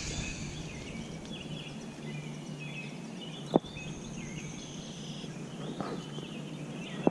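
Birds chirping over a steady low hum, with one sharp click about three and a half seconds in.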